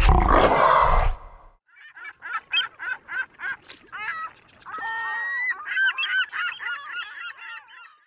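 A brief rush of noise like a breaking wave, then a quick string of honking bird calls, several a second, with a longer drawn-out call about five seconds in, cutting off at the end.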